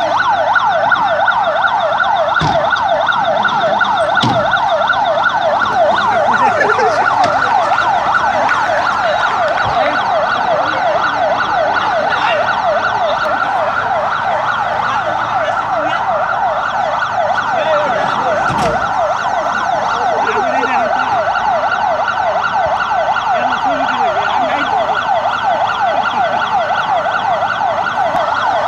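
Ambulance siren sounding continuously in a fast, rapidly rising-and-falling yelp.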